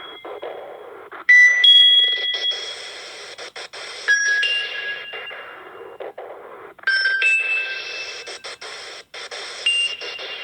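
Nokia 6300 mobile phone ringtone playing through the phone's speaker. A short phrase of a few high tones repeats about every three seconds, four times in all.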